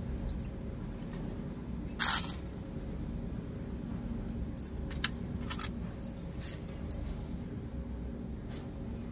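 Miniature stainless-steel toy utensils, a spatula and slotted spoons, clinking and scraping lightly against each other as they are handled. The loudest is a short scraping clink about two seconds in, with a few smaller clinks later, over a steady low hum.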